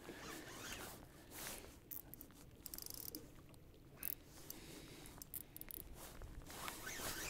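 Spinning fishing reel giving a quick run of rapid clicks about three seconds in as a big hooked lake trout is played, among scattered rustles and knocks of handling.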